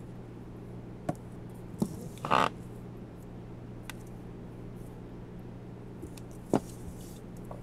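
Books being handled on a library shelf: a few light knocks and one short scrape a little over two seconds in, over a steady low hum.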